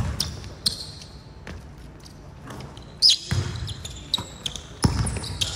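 Basketball bouncing on a hardwood court a handful of times at an irregular pace, the loudest bounce about three seconds in, with short high squeaks of sneakers on the floor between them.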